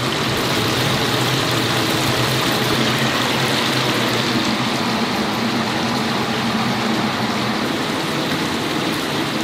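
Chicken deep-frying in hot oil in a cast-iron cauldron, a dense steady sizzle, with a low steady hum underneath.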